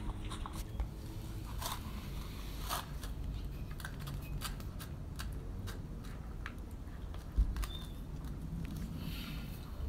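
Two Doberman puppies eating dry dog food from a metal bowl: irregular crunching and clicking of chewing, with one louder low thump about seven seconds in.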